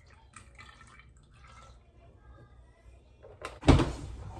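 Milk being poured from a carton into a glass blender jar over strawberries and banana, faint and trickling. About three and a half seconds in, a sudden loud thump, followed by a softer rushing noise.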